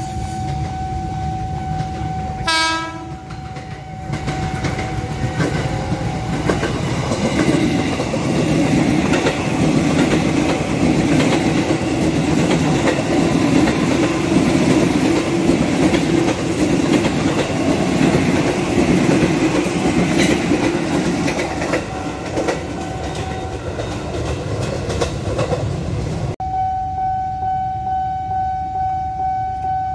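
A KAI Commuter electric multiple-unit train passing at speed: a short horn blast about two seconds in, then the rumble and clatter of wheels over the rail joints, building to its loudest midway and fading away. A steady high tone sounds at the start and again near the end.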